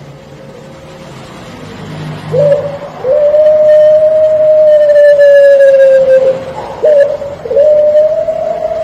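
Puter pelung, a long-cooing strain of Barbary dove, cooing: a short coo about two seconds in, then a long drawn-out steady coo of about three seconds, another short coo, and a second long coo starting near the end.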